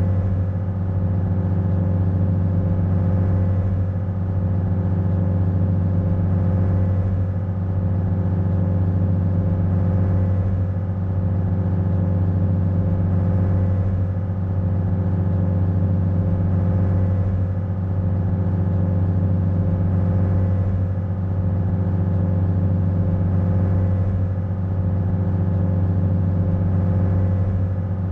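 Ferry's engine running steadily under way, a loud low drone with a slight dip in level about every three and a half seconds.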